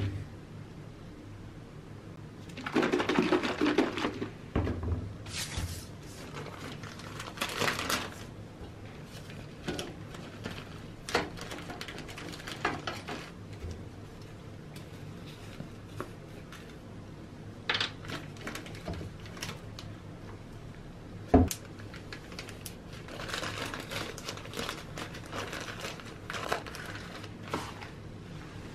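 Hands handling a plastic bottle of metal cleaner and a zip-lock plastic bag on a wooden table: several stretches of plastic rustling and crinkling with scattered clicks and knocks, the sharpest a single click about three-quarters of the way through.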